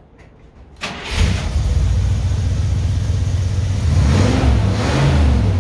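Cold start of a 1965 Buick Wildcat's 401 Nailhead V8, cammed and straight-piped, running on a newly fitted carburetor. It cranks briefly, catches about a second in and keeps running loud, with a couple of rises in revs near the end.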